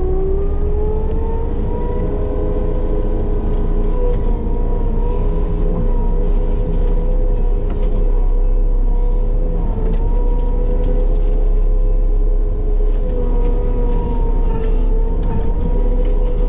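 A Fecon forestry mulching head on a compact track loader spinning up. A whine rises in pitch over the first couple of seconds, then holds at a steady high pitch over the loader's diesel engine rumble.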